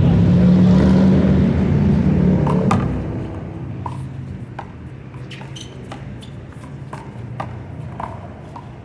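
A low vehicle rumble fades out about three seconds in. After that, a rubber handball smacks sharply and irregularly against hands, the wall and the pavement in a one-wall handball rally, one or two smacks a second.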